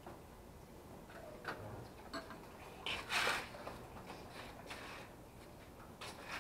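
Scattered light clinks and clicks of tableware, with one louder scrape about three seconds in.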